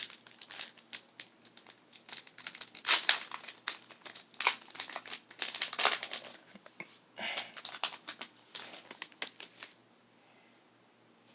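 Pokémon card booster pack's foil wrapper crinkling and being torn open: a dense run of sharp crackles that stops shortly before the end.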